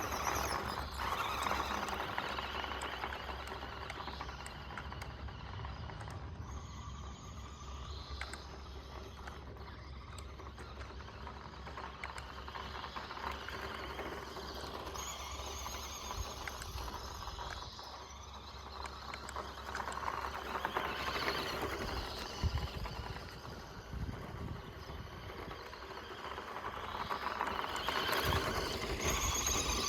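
Small RC car driving over loose dirt: a steady electric motor whine that swells and fades a few times, with tyres crunching and pattering on the ground.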